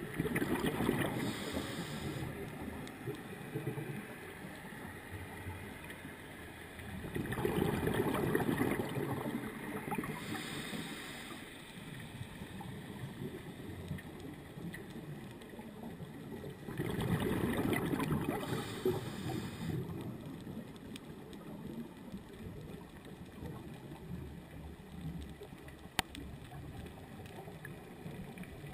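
Scuba regulator breathing heard underwater: three long rushing bursts of exhaled bubbles about nine seconds apart, each with a short hiss near its end, over a steady low underwater rush.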